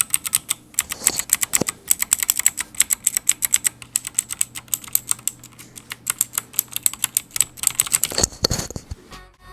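Fast typing on an HP GK100 mechanical keyboard with KRGD blue switches: a rapid run of sharp key clicks, many a second, broken by brief pauses.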